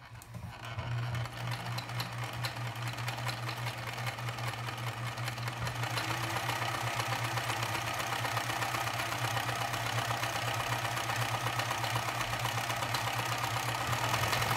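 A freshly serviced Pfaff 209 sewing machine sewing a wide zigzag at a short stitch length through two layers of thin fabric. The motor hums and the needle and feed mechanism clatter in rapid, even strokes, building up speed over the first few seconds and then running steadily.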